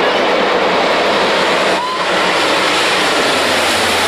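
Canadair water bomber flying low overhead, its twin engines making a loud steady noise. The sound dips briefly about two seconds in.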